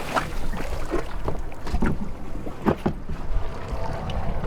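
Water slapping and splashing against a small boat's hull in open sea, with wind on the microphone and several short sharp splashes.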